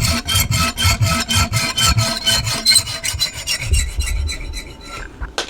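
Blunt junior hacksaw sawing through metal in quick, even back-and-forth strokes, about five a second, slowing and stopping near the end as the cut finishes.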